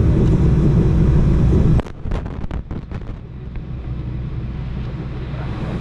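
Boeing 737 passenger-cabin noise: a steady low engine rumble that drops abruptly to a much quieter hum about two seconds in, with a few short knocks just after the drop.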